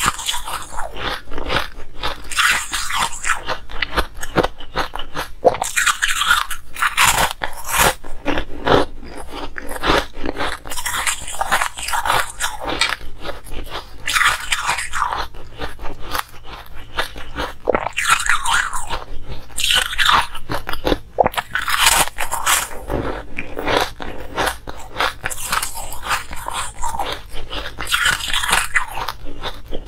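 Hard ice being bitten and crunched between the teeth, close to the microphone: sharp cracks and gritty chewing crunches that come in stronger flurries every few seconds. The ice is coloured and ring-shaped.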